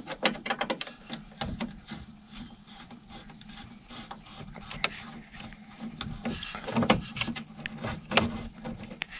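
Hand screwdriver turning out the screws of a car's lower dash trim piece: a run of irregular small clicks and ticks, busiest in the first couple of seconds and again from about six and a half seconds in.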